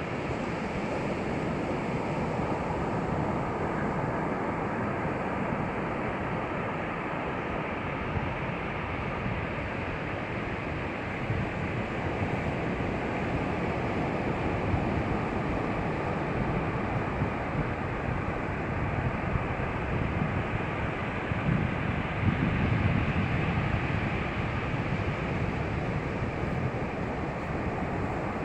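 Sea waves washing onto a beach: a steady rush of surf, swelling a little louder about three quarters of the way through.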